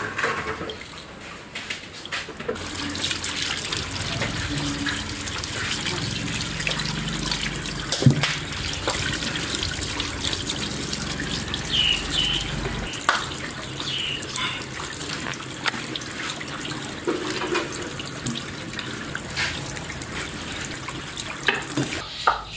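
Tap water running and splashing into a stainless steel sink while a raw eel is rinsed and rubbed by hand, with a few knocks against the sink. The water starts a couple of seconds in and stops near the end.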